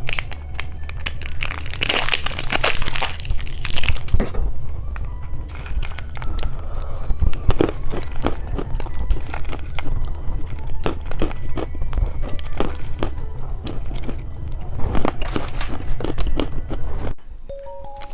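Plastic candy packaging being handled: a burst of crinkling and tearing about two to four seconds in, then many light clicks and taps of small plastic pieces. A steady low hum runs underneath and cuts off near the end.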